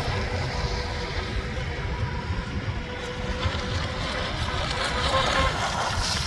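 Electric motor and drive whine of a radio-controlled Pro Boat Stealthwake with a flex-shaft drive running on a pond. It is a steady high whine that grows fainter about halfway through, with wind rumbling on the microphone.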